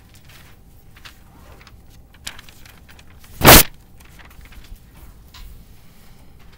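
A single loud thump right at the recording device about halfway through, from its desk or the device being bumped. Around it, faint classroom rustling with a few small clicks.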